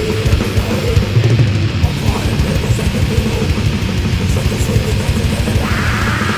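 Thrash metal band recording: distorted electric guitars riffing over a drum kit. A brighter, higher layer joins near the end.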